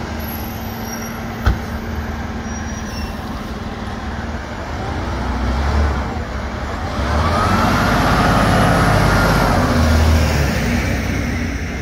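Diesel engine of a tractor-drawn aerial ladder fire truck (Spartan ERV MetroStar/LTC 100' TDA) running with a steady low rumble. It grows louder from about seven seconds in as the truck pulls close past, with a whine that rises and falls. A single sharp click comes about a second and a half in.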